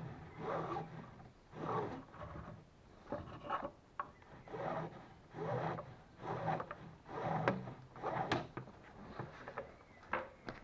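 Rope being hauled tight through a trucker's hitch over a boat hull, rasping and rubbing with each pull, about one pull a second.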